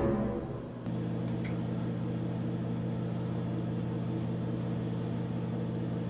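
A louder sound dies away in the first second, then a steady low hum with several even overtones holds unchanged.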